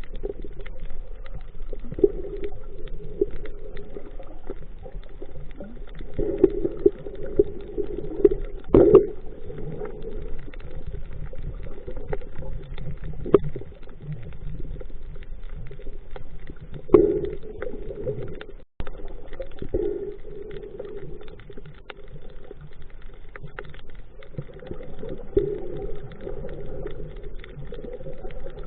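Muffled underwater sound picked up by a camera in the sea: a low, murky wash of water with scattered clicks and knocks, the loudest about nine and seventeen seconds in.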